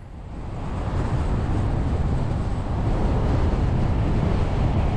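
Steady rush of road and wind noise from a vehicle driving at highway speed, swelling over the first second and then holding.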